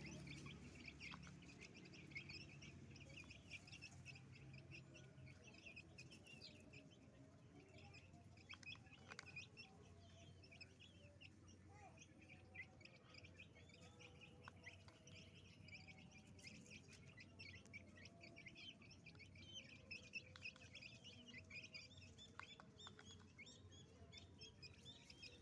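A brood of chicks peeping continuously, a dense chatter of short high cheeps, with a few faint clicks here and there.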